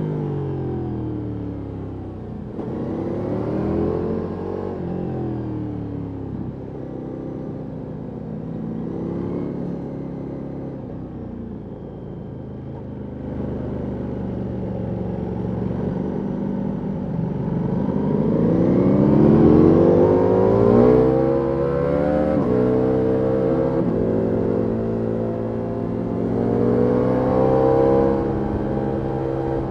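Ducati Multistrada V4S Rally's V4 engine through an Akrapovic exhaust, revving up and down through the gears, with a hard climb in revs about two-thirds of the way in and stepped changes in pitch near the end as it shifts.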